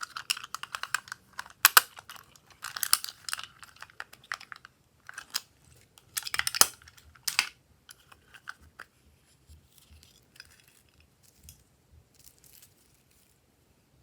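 Slime being squished and worked by hand, giving bursts of crackling, popping clicks. The bursts are loudest in the first half and thin out to faint crackles later.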